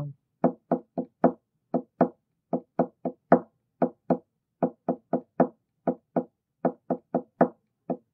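Hand tapping on the wooden top of an acoustic guitar, hollow knocks beating out a strumming-pattern rhythm. The uneven group of taps repeats about every two seconds.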